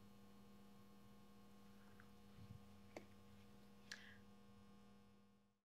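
Near silence: a faint steady electrical hum, with a few faint soft ticks and rustles about two to four seconds in, cutting off to dead silence near the end.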